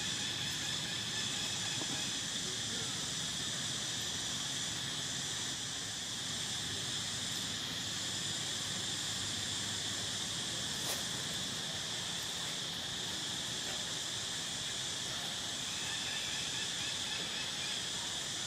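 Steady, high-pitched chorus of insects droning in the surrounding forest, with one faint click about eleven seconds in.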